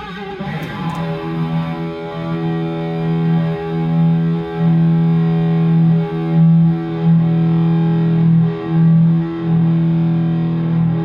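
Electric guitar, an EVH Wolfgang Standard, played through an EVH 5150 combo amp with distortion. The pitch glides down in the first second, then one low note is held and re-struck several times, with short breaks between.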